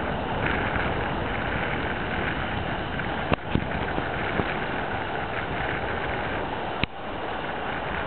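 Steady rush of wind buffeting the microphone together with surf at the shoreline, broken by a couple of sharp clicks about three seconds in and another near the end.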